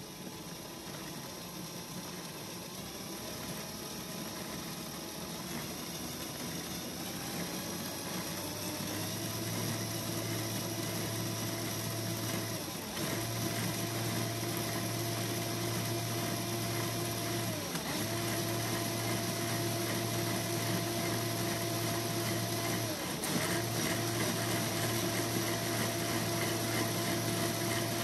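Lego Technic motor driving a model twin-cam engine through a plastic eight-speed gearbox to a wheel: a whir of motor whine and gear clatter. It climbs in pitch in steps over the first nine seconds as the engine revs are raised, then holds steady, dipping briefly and recovering three times.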